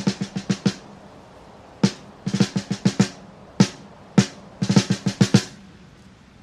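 Snare drum playing short runs of quick strokes and single accented hits, with short pauses between the groups.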